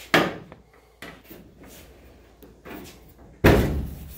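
Steel car hood of a 1971 AMC Matador being shut on its newly reinforced hinges. There is a sharp clunk just after the start, then near the end a heavy slam with a ringing decay as the hood drops onto its latch.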